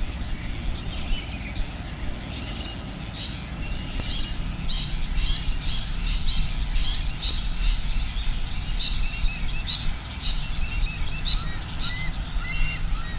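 Birds calling: a string of short, high, downward-hooking chirps, about two a second, over a steady low rumble.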